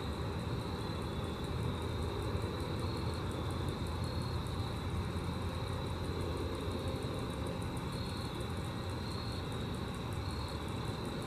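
Grasshopper stridulating: a high, rapid, evenly spaced pulsing, over a steady low rumble.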